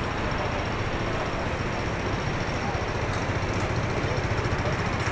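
Steady low mechanical rumble in city street ambience, with a few faint high clicks about three seconds in.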